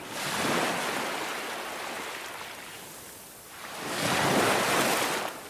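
Rushing water and splash sound effects for an animated logo reveal: two surging swells, the first right at the start and a louder one about four seconds in, fading near the end.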